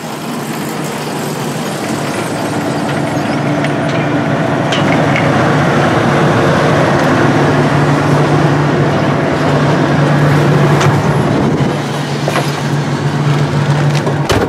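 John Deere S780 combine running while harvesting corn: a steady engine hum over broad threshing and machine noise, growing louder over the first several seconds and then holding steady, with a few faint clicks.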